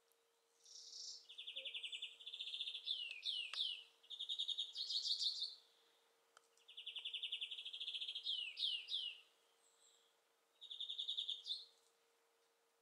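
A songbird singing in three phrases, each a fast trill broken by a few quick down-slurred notes: two long phrases, then a short one near the end.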